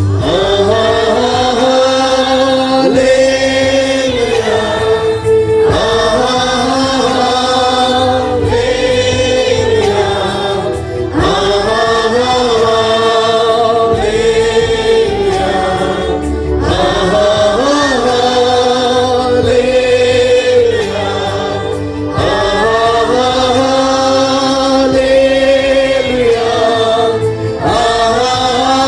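A group of voices singing a Kannada Christian worship song with instrumental backing, in long held phrases.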